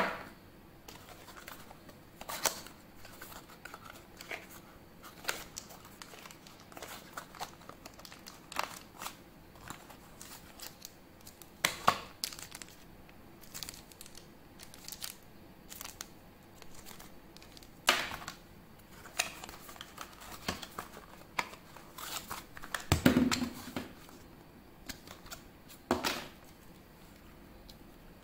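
Packaging being handled and opened: intermittent crinkling and tearing of wrapping, with scattered clicks and a few louder knocks.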